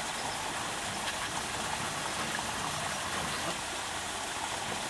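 Steady outdoor ambience: an even hiss with faint short chirps scattered through it.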